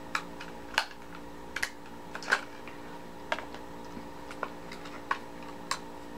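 Scattered light clicks and taps, about a dozen at uneven intervals, from small items being handled, over a steady low electrical hum.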